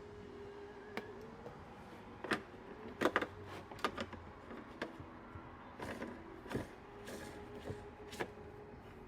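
Sharp clicks and knocks of small hard parts being handled and set down while the spa pump is being worked on, a cluster of them about three seconds in, over a steady low hum.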